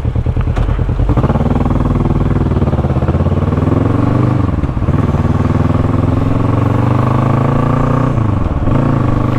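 Motorcycle engine pulling away and accelerating, its pitch climbing, dropping sharply at a gear change about halfway through, climbing again, then falling back near the end and holding steady.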